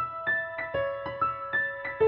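Background piano music: a gentle melody of single sustained notes, a new one struck every quarter to half second.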